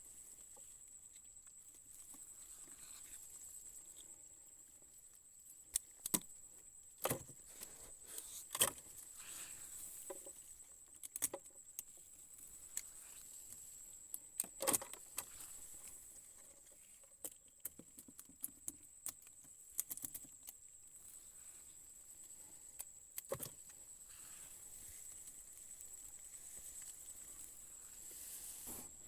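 Scattered clicks and knocks at irregular intervals from handling a fishing trap and its catch, over a faint steady high-pitched whine.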